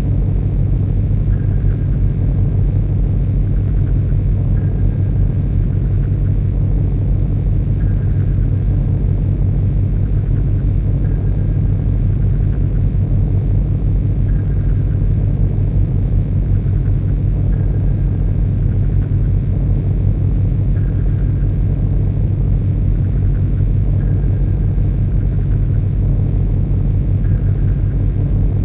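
Harsh noise recording: a loud, dense low rumble with a fast stuttering flutter running without a break. A faint short high tone recurs about every three seconds on top of it.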